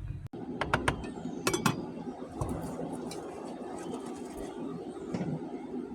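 Hard objects clinking and knocking, plastic connectors against a glass beaker: a few sharp clinks in the first two seconds, over a steady rushing noise like running water.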